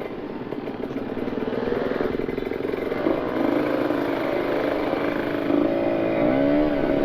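Kawasaki Ninja RR 150 two-stroke single running through an aftermarket R9 carbon exhaust while riding. The engine gets louder over the first couple of seconds, then holds, with a brief dip and rise in pitch a little after six seconds.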